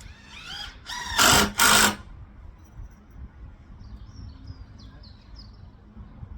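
A handheld power tool whirring in two short loud bursts about a second in, each lasting about a third of a second, just after a brief rise and fall in pitch. Faint high chirps follow.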